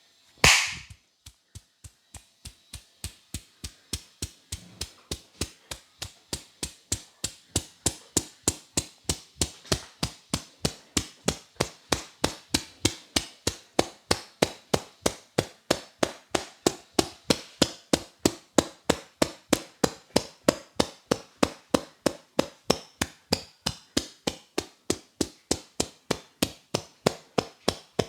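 Barber's hands striking the head and shoulders in a rhythmic chopping and tapping massage, about three sharp slaps a second in an even, unbroken beat. It opens with one louder, longer hit just after the start.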